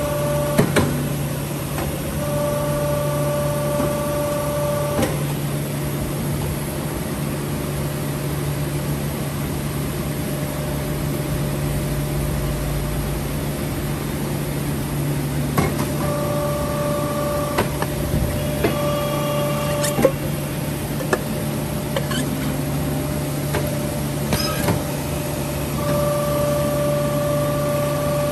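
Cookware embossing machine running, its knurled rollers pressing a honeycomb pattern into a metal pot body. There is a steady motor hum, and a whine that comes on and off several times, each lasting one to a few seconds. A few sharp clicks are scattered through it.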